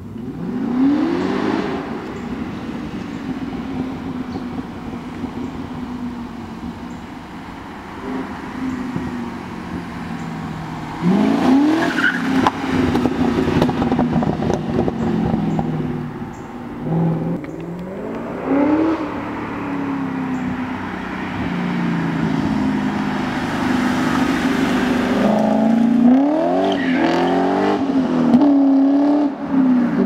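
BMW E39 M5 V8 with its muffler deleted, revving and accelerating hard several times. The pitch climbs in sharp sweeps near the start, about a third of the way in, just past the middle and again near the end, with the engine running loud between them.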